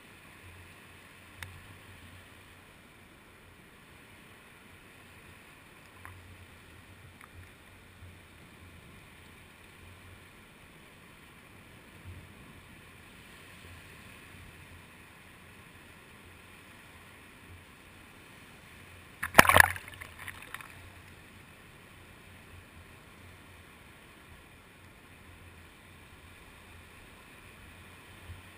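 Waves washing over a flat sandy shore, heard faint and muffled through a GoPro Hero2's waterproof housing sitting in the wash. There are a few small clicks, and one loud, crackling knock about two-thirds of the way through.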